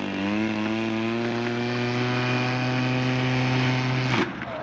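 RC model aircraft engine running at a steady speed, then cutting off abruptly with a sharp click about four seconds in.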